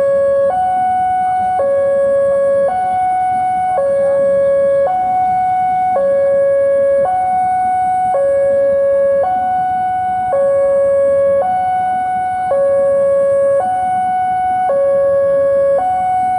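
Railway level-crossing warning alarm sounding a steady electronic two-tone call, alternating between a lower and a higher note about once a second. It signals a train approaching the crossing.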